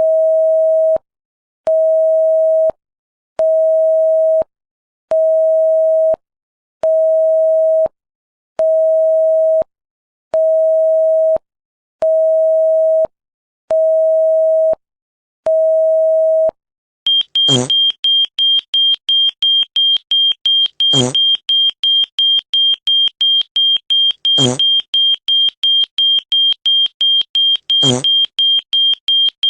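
Electronic beep tones: ten evenly spaced low beeps, each about a second long with short gaps between. About 17 seconds in they give way to a rapid high-pitched beeping, about three or four beeps a second, with a thump roughly every three and a half seconds.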